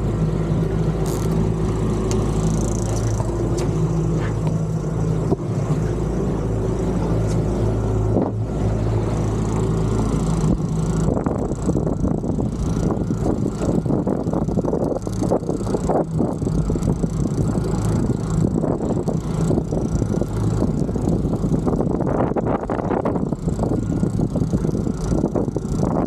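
Boat engine running steadily at a low hum. From about halfway through, rough, gusty wind and water noise with rattling knocks comes up over it.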